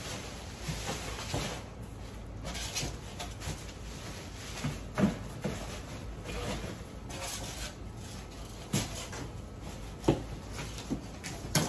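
Plastic wrapping and cardboard packaging being handled and rustled while parts are unpacked from a box, with a few sharp knocks scattered through it.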